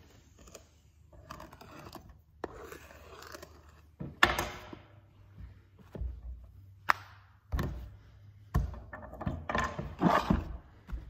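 A pointed clay tool dragging through a soft clay slab in three scraping strokes, then several sharp knocks and low thumps as the cut-off clay strips are pulled away and handled on the worktable.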